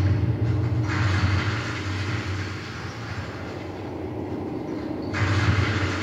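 Deep rumbling sound effects from a projection show's loudspeakers: a heavy low drone with a rushing hiss over it that cuts out briefly and returns abruptly about five seconds in.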